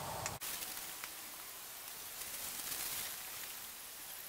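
Faint outdoor ambience: a steady high hiss with a couple of faint clicks, after a sudden cut about half a second in.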